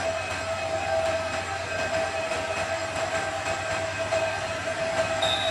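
Diesel locomotive hauling a passenger train slowly toward the listener: steady engine drone with a steady ringing tone over it and faint repeated ticks.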